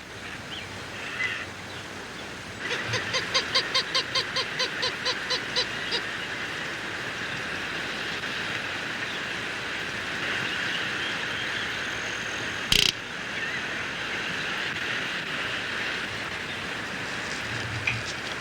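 Greater roadrunner calling a rapid series of about a dozen evenly spaced pitched notes, roughly four a second, about three seconds in. After it comes a steady outdoor hiss, broken once near the middle by a sharp click.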